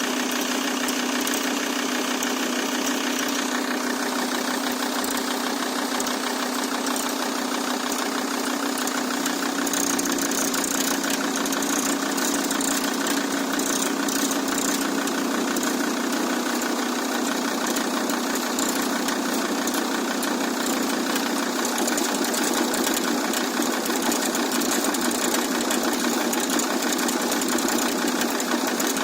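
Audi A6 C4 2.5 TDI five-cylinder diesel idling with a steady, fast knocking from the alternator and power-steering belt tensioner. The owner traces the knock to a worn Chinese-made tensioner, not the crankshaft pulley he first suspected.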